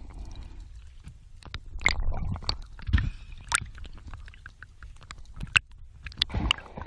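Water gurgling and sloshing around a camera carried underwater and up through the sea surface, with a low rumble and many scattered sharp clicks and knocks.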